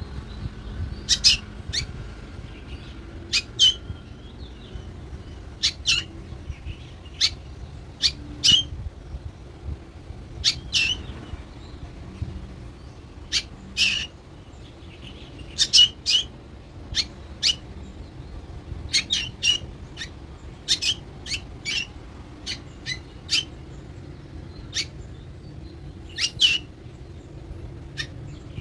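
Young black bird calling with short, sharp, high chirps, repeated every second or two, sometimes in pairs or quick runs.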